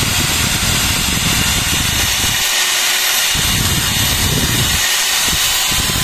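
iBell 650-watt corded electric drill running at full speed while boring a hole into wood. The low part of the sound drops away and comes back a few times as the bit's load changes.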